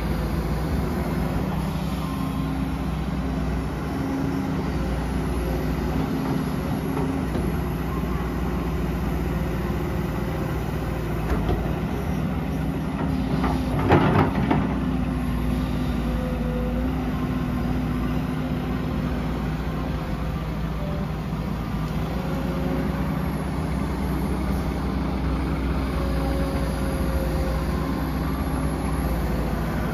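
Komatsu PC200 hydraulic excavator's diesel engine running under working load. Its steady low drone carries higher tones that come and go as the hydraulics work. About fourteen seconds in there is a brief, loud rush of noise.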